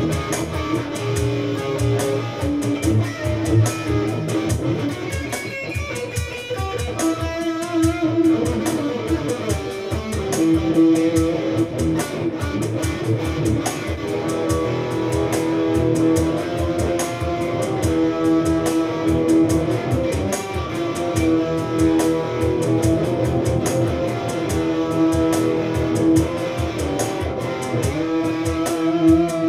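Electric guitar jamming through an amp, with held, sustained notes and melodic lines over a steady beat.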